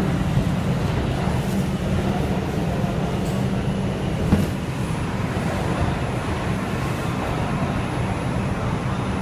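Steady low rumble inside a moving R142 subway car, with a single short knock about four seconds in.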